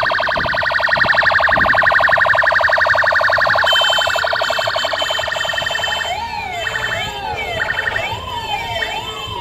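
Vehicle sirens. A fast-pulsing siren tone runs for about the first six seconds, then several wailing sirens rise and fall over one another.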